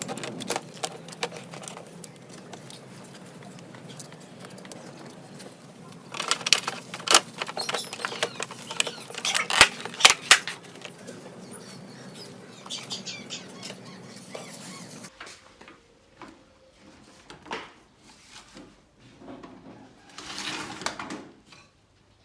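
Irregular clicks and taps of small hard objects being handled, densest in a flurry midway, over a steady background hiss that cuts off suddenly about two-thirds of the way through.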